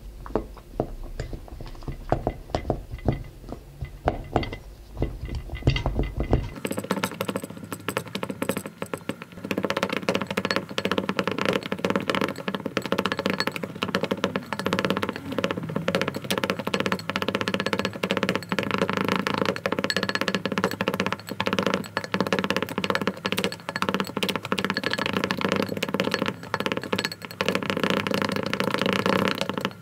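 Plastic knives clicking and scraping against a glass mixing bowl as cold butter is cut into flour. About six seconds in, the sound turns into a dense, fast clatter of clicks with music-like tones running through it.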